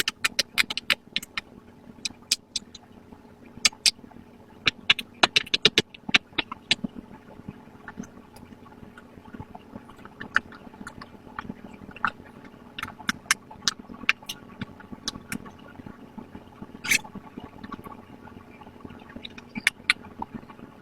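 Bubbles of a pop-it fidget toy being pushed through one after another, a rapid run of sharp pops that thins out after the first several seconds into scattered single pops.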